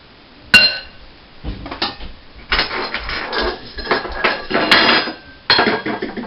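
Metal kitchen utensils clattering on a countertop: a sharp metallic clank with a brief ring about half a second in, then a few seconds of irregular clinking and rattling, with another sharp click near the end, as a ring of metal measuring spoons is handled.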